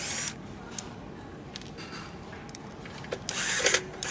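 Electric screwdriver running in short bursts as it backs screws out of a metal instrument case: a brief high whir at the start, a few light clicks, then another whir of about a second near the end.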